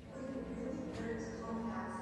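Music with slow, held notes that shift in pitch a few times.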